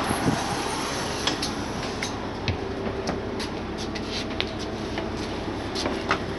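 Steady running noise of a Solaris Urbino 8.9 LE city bus standing with its door open. Scattered short clicks and knocks come from someone boarding and stepping onto its floor.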